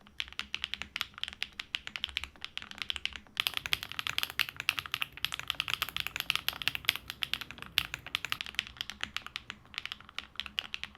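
Fast continuous typing on a custom Alice-layout mechanical keyboard with HMX Xinhai linear switches and PBT keycaps, in a full-foam build. The sound is bright and clacky and really loud, with a short pause about three seconds in.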